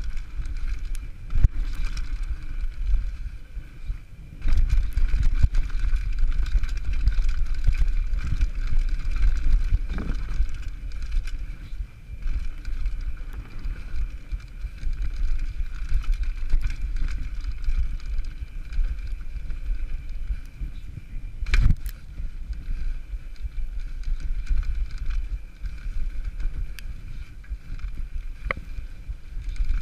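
Downhill mountain bike riding fast over a rough dirt trail: steady tyre and wind rumble on the microphone with frequent small knocks and rattles from bumps, and one sharp, loud knock about two-thirds of the way through.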